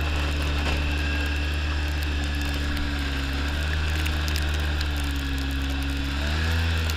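Engine of a small vehicle driving through deep snow, running at a steady pitch with a steady high whine alongside; the engine note rises slightly about six seconds in.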